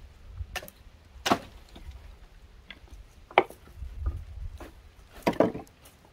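Dry wooden planks and branches knocking and clattering as they are lifted and tossed onto a firewood pile: a few sharp separate knocks, the loudest about a second in, midway, and a double knock near the end.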